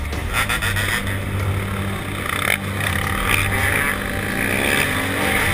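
Motocross bike engines idling and being revved as the riders pull away, the pitch rising in a few revs from about three seconds in.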